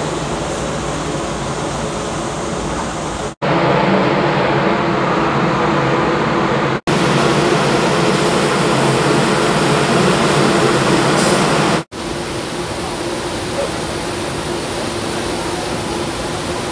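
Steady rush of wind and water on the open deck of a passenger ship under way, with a low machinery hum. It is louder, with a stronger hum, through the middle, and drops out for an instant three times.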